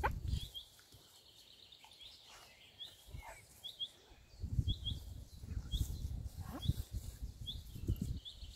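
A small bird chirping over and over in short, high, upward-flicking notes, about one every half second to second. Under it, bursts of low rumbling noise come and go, loudest in the second half.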